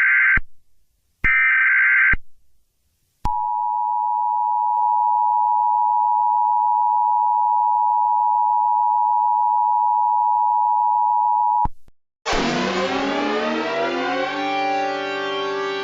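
Emergency Alert System broadcast tones: two short, harsh digital data bursts of the alert header, each about a second long, then the steady two-tone EAS attention signal held for about eight seconds before it cuts off. After a brief gap, a loud swell of many gliding tones settles into a held chord as eerie music begins.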